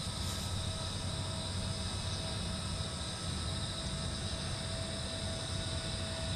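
Homemade electric RC airplane flying, its motor and propeller giving a thin steady whine that drops out for about a second midway, over a low rumble of wind on the microphone.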